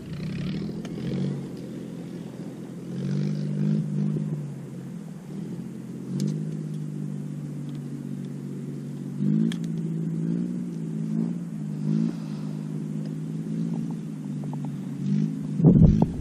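A small engine running steadily, its pitch shifting up and down several times as the throttle changes.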